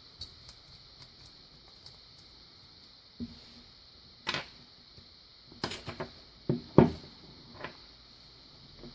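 Small metal lock parts being handled during disassembly: a scattered series of sharp clicks and taps, faint at first and loudest about two thirds of the way in.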